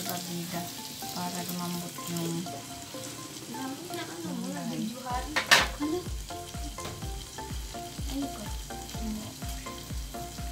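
Pork and squash sizzling in a wok as a wooden spatula stirs them, then a glass pan lid set down on the wok with a sharp clank about five and a half seconds in. Background music plays underneath.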